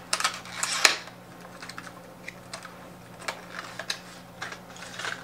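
A lure's retail box being opened by hand: a run of irregular light clicks and rustles of cardboard and plastic packaging, busiest and loudest in the first second.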